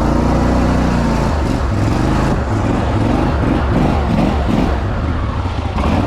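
Gator-Tail surface-drive mud motor running hard as the boat travels, its engine note wavering up and down.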